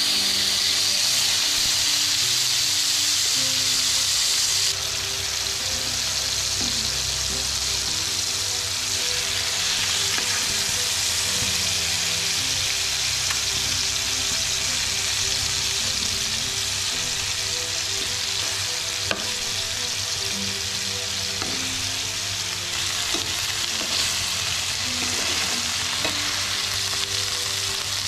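Marinated snakehead (murrel) fish steaks shallow-frying in hot oil in a flat pan: a steady sizzle, with a few light clicks.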